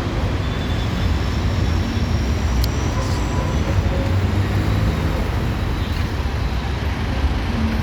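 Steady background traffic noise with a heavy low rumble, and a single sharp click about two and a half seconds in.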